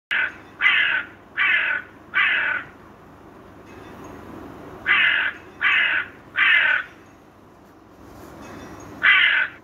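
Crow cawing: four caws in quick succession, three more about five seconds in, and one last caw near the end, with faint steady background noise between the calls.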